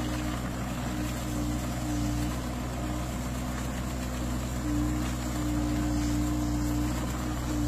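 Compact tracked mini excavator with a hydraulic olive-shaker head, its diesel engine running steadily. A higher hum cuts in and out at irregular intervals as the shaker works the tree.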